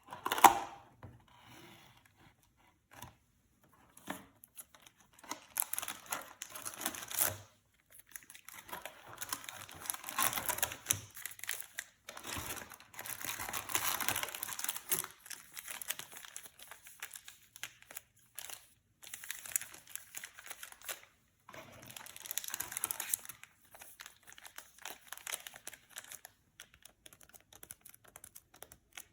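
Yu-Gi-Oh card box packaging being opened by hand: plastic wrapping crinkling and tearing in repeated spells, with a sharp loud rustle right at the start.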